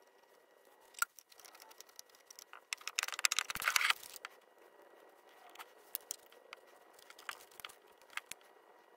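Small metal parts clicking and clinking on a steel workbench as a rebuilt diesel injection pump and its fittings are handled, with a short, loud burst of crinkling and tearing from a white paper piece about three seconds in.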